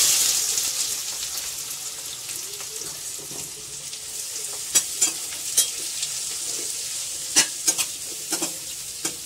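Sliced onions sizzling in hot oil in a stainless-steel wok. The sizzle is loudest as they go in, then settles to a steady frying hiss as a spatula stirs them, with a few sharp scrapes and taps of the spatula against the pan about halfway through and after.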